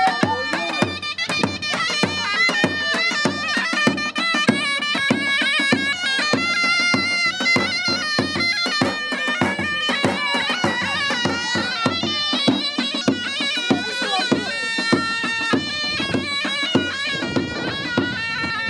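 Live traditional dance music played on zurna and davul. The reedy double-reed pipe plays a continuous, ornamented melody over a steady beat on the large double-headed bass drum.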